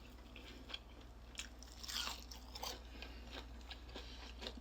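Close-up chewing and biting of crispy fried chicken, with scattered crunches of the fried crust, the loudest about two seconds in. A steady low hum runs underneath.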